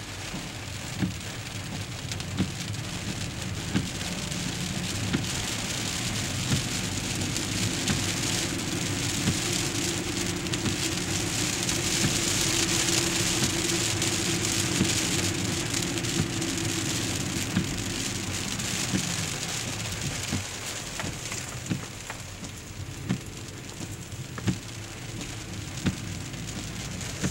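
Heavy rain falling on a moving car, heard from inside the cabin, with a low hum of the car running on the wet road; the rain swells loudest in the middle. A sharp tick sounds about every second and a half.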